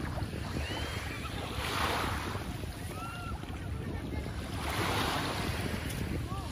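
Wind rumbling on the microphone over shallow seawater lapping and splashing around legs wading through it, with two swells of water noise about two and five seconds in. A few faint high chirps come and go.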